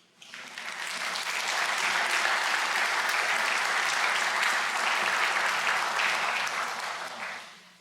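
Audience applauding, building quickly to a steady clapping and dying away near the end.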